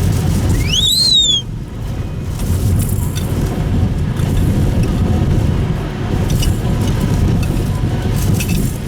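Cabin noise of a Subaru Impreza Sport (GP7) driving: a steady low rumble of tyres and engine. About a second in, a brief high squeak that rises and then falls.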